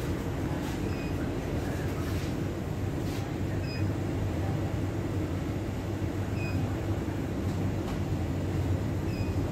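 Steady low machine hum of shop coolers and air conditioning, with a short faint high beep repeating about every three seconds, four times.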